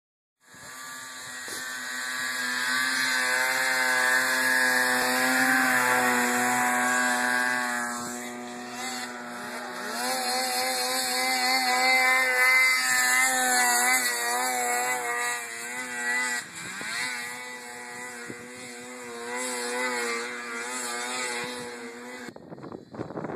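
Snowmobile engine running hard at high revs, its pitch rising and falling as the throttle changes, with the sled working through deep powder. The engine sound stops abruptly about a second before the end, leaving wind noise on the microphone.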